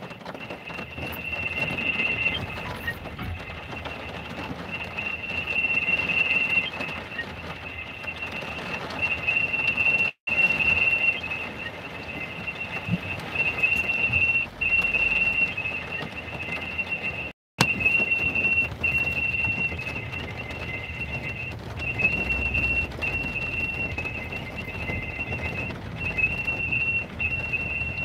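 A steady high-pitched whistling tone, with a fainter lower tone beneath it, held almost without a break over a low rumble.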